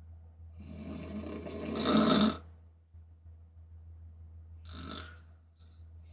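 A woman snoring hard through an open mouth: one long snore that builds to a loud peak and cuts off suddenly, then a shorter, quieter snoring breath about five seconds in.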